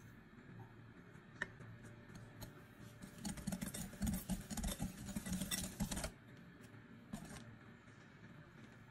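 Wire balloon whisk beating egg yolks and sugar in a glass bowl: a fast, rhythmic run of wires clicking and scraping against the glass for about three seconds, stopping suddenly. A single sharp click comes a little over a second in.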